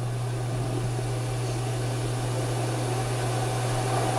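Steady low electrical hum with an even background hiss, with no distinct strokes or knocks.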